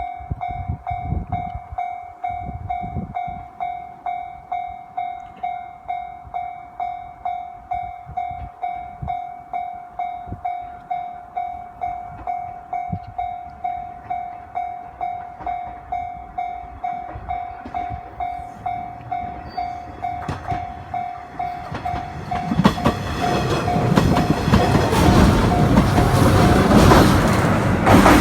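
Japanese level-crossing warning bell ringing a steady repeating electronic ding, about one and a half strikes a second. About 22 seconds in, a 105 series electric train reaches the crossing and passes with a loud rumble and wheel clatter, the bell still ringing under it.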